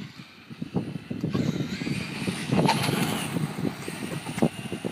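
Electric radio-controlled car on a 3S LiPo battery speeding along tarmac: its motor gives a high whine that rises and falls in pitch as it goes by, loudest about halfway through.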